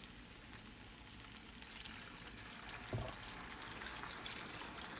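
Chicken stock being poured from a plastic bowl into a hot electric skillet over browned chicken pieces, a low steady splashing pour. There is a single knock about three seconds in.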